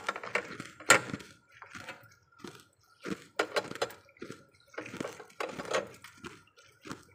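Short, irregular wet crunches and squishes of melting freezer-frost ice.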